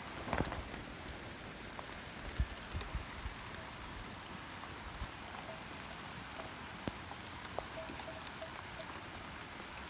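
Heavy rain falling steadily, with a few louder drops tapping close by now and then.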